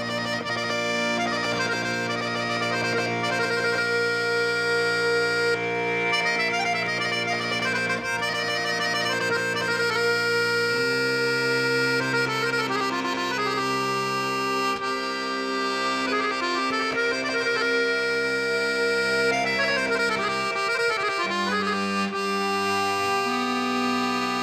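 Background music of long held chords, the bass notes shifting about eleven seconds in and twice more near the end.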